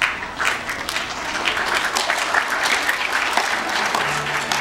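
Audience applauding, many hands clapping. A low steady note comes in near the end.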